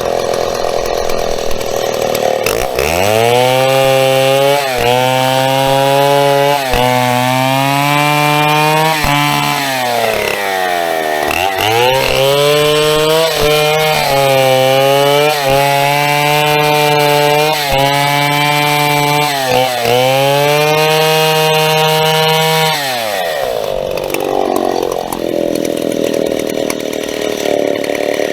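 Vintage large-displacement Stihl two-stroke chainsaw held at full revs while cutting birch wood. Its pitch dips briefly every couple of seconds and sags deeply once midway as the chain bites in the cut. Near the end it drops back toward idle with one short rev.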